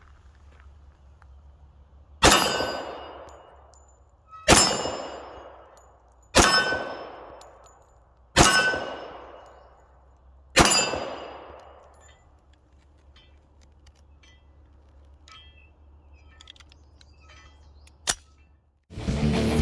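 Five shots from a Springfield Armory Mil-Spec 1911 pistol, about two seconds apart, each followed by a ringing, clanging tail that dies away over a second or two. A single sharp click comes near the end, and music starts just before the end.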